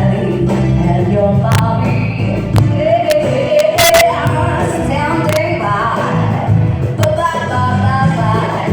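Live band music with a singer: a held, wavering sung melody over bass and drums, with a few sharp cymbal-like hits.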